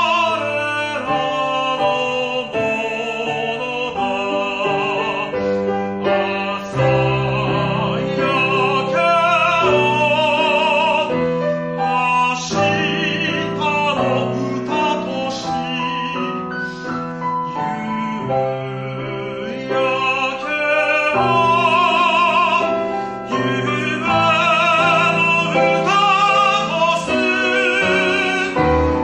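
A man singing a Japanese art song in a classical, operatic style with wide vibrato, accompanied by a Steinway grand piano. The music eases into a softer passage a little past the middle, then swells again.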